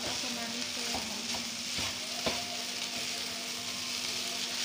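Fried rice sizzling in a hot frying pan as it is stirred and tossed with a spatula, with about three light knocks of the spatula against the pan.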